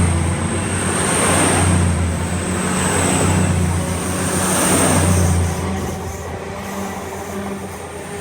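Train passing close by: the rumble of wheels on the rails swells and fades every couple of seconds as the vehicles go by, over a steady low engine hum and a thin high whine. It eases off after about five and a half seconds.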